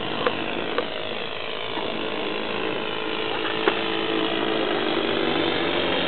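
Ben Buckle Super Scorpion model aeroplane's small engine buzzing steadily in flight, its pitch dipping slightly midway and getting louder toward the end. A few short sharp clicks are heard on top.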